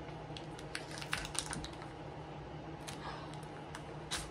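Light, irregular clicks and crinkles of hands handling a Pokémon booster pack's foil wrapper and cards, with one sharper click near the end.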